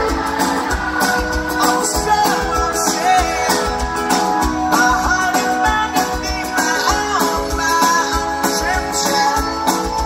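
Live band playing a pop-rock song over a concert PA, heard from within an outdoor audience: a lead vocal sung over strummed guitar and a steady bass-drum beat.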